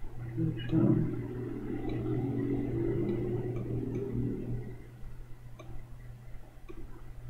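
Room noise through a video-call microphone: a steady low electrical hum under a muffled low murmur that fades out after about four and a half seconds, with a few faint clicks.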